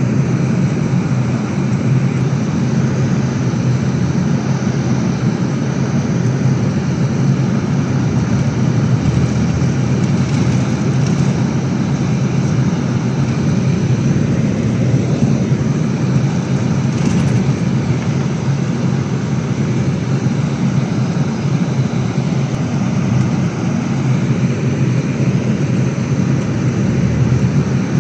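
Volvo B11RLET double-deck coach on the move, its diesel engine and road noise heard from inside the upper deck as a steady, even drone.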